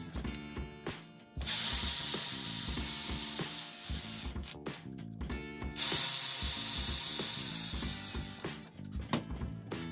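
Ratchet wrench spinning bolts into the aluminium differential housing, in two runs of about three seconds each, the first starting about a second and a half in, over background music.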